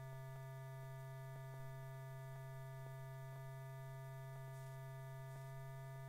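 Steady low electrical hum with fainter steady tones above it and faint ticks about once a second; no sound from the aircraft itself.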